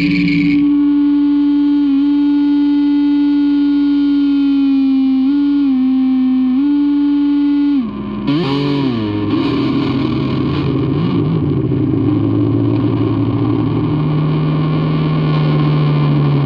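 Distorted electric guitar through a Marshall amplifier, holding long sustained feedback notes. About eight seconds in the pitch wobbles and bends down, then settles on lower held notes.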